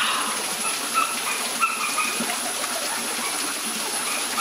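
Jungle ambience: a steady high-pitched insect whine over an even rushing background, with short bird chirps repeating several times.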